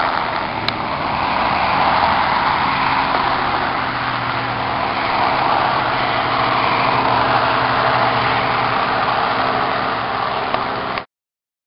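Small helicopter flying low and away, its engine and rotor giving a steady noise that cuts off suddenly near the end.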